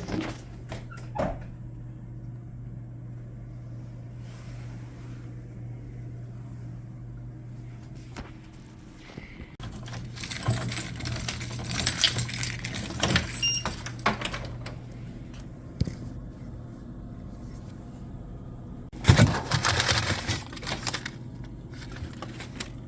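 Keys and small metal pieces jangling and rattling in two spells, about ten seconds in and again near twenty seconds, over a steady low hum.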